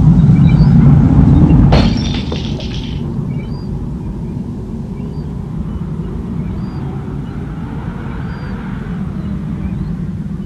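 Wind howling outside, as a film sound effect. A heavy low rumble fills the first two seconds and is cut by one sharp crack, then it settles into a steadier, quieter rumble with faint high chirps.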